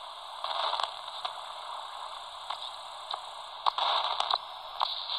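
Hiss and static from the Albrecht AE2990 AFS handheld CB receiver's speaker, with short crackles and brief bursts of noise as the receiver is stepped up through frequencies in the 27 MHz band where no station is heard.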